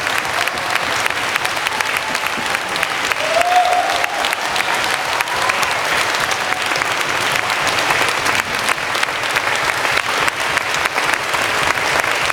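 Concert audience applauding, dense steady clapping. One short rising whoop rises above it about three seconds in.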